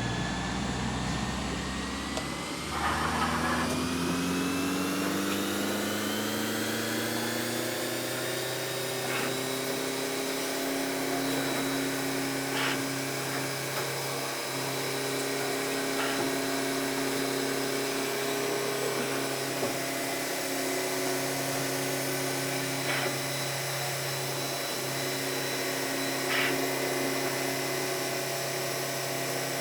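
CNC milling machine spindle running up to speed with a rising whine over the first several seconds, then running at a steady pitch while milling a small plastic part. A few brief higher-pitched scratches come at scattered moments.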